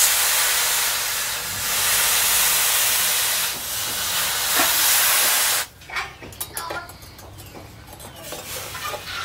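A hot steel knife blade, forged from a tractor's disc plough, plunged into a trough of water to quench it. It sets off a loud steam hiss that starts suddenly and stops after about five and a half seconds, followed by a few light clicks.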